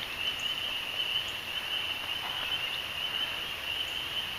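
A chorus of frogs calling continuously, a steady high-pitched ringing that doesn't break.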